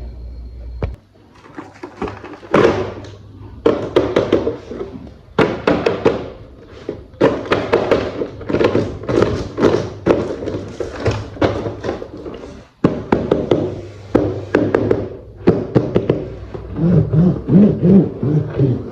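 Plastic toy train parts being handled and fitted together: a busy, irregular run of knocks, taps and thunks.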